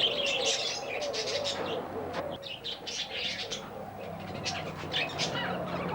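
Many small cage birds chirping and chattering over one another in quick, dense high notes, with a lower warbling call underneath.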